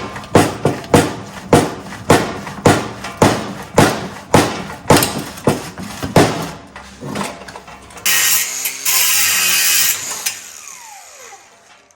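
Exhaust pipe cutter being worked on a steel exhaust pipe: a quick series of sharp metallic strokes, about two a second. About eight seconds in, a loud hiss lasts about two seconds, then a falling whine dies away.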